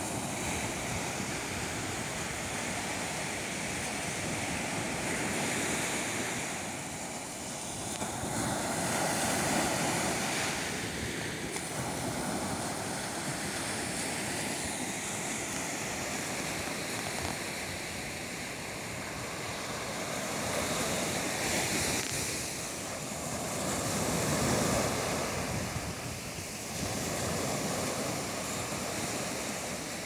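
Ocean surf: small waves breaking and washing up a sandy shore in a steady rush, swelling louder about a third of the way in and again near the end.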